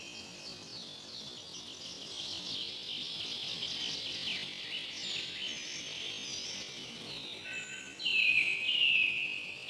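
Several birds chirping together, many short overlapping chirps and quick pitch glides. About eight seconds in, a louder call starts, one short high phrase repeated about twice a second.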